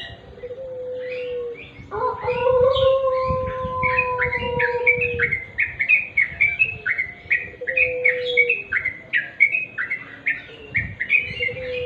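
Yellow-vented bulbuls (trucuk) chattering: quick repeated short chirps that grow denser and louder about two seconds in. A steady, slightly falling lower tone is held for a few seconds beneath the chirps, and shorter ones come later.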